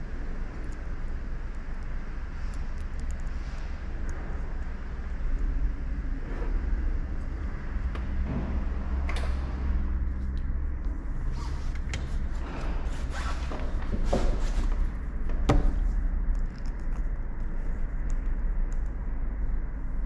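Handling noise as hands work the wires of a tweeter and its small inline capacitor on a desk: scattered short clicks and knocks, most of them in the second half, over a steady low rumble.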